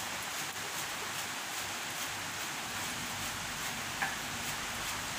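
Steady hiss of rain.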